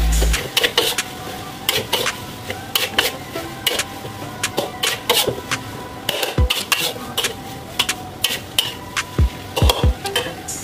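Metal spatula scraping and clattering against a metal wok in quick, irregular strokes as instant noodles are stir-fried. A few dull thumps come in the second half.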